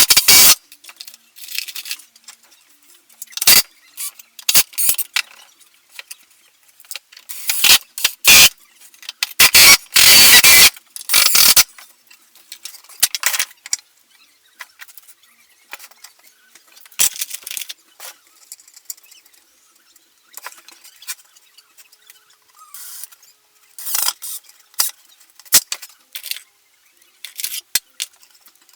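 Workshop handling noises from woodworking with scrap wood and tools: scattered sharp clicks, knocks and short scraping or rattling bursts, with a longer scraping burst about ten seconds in.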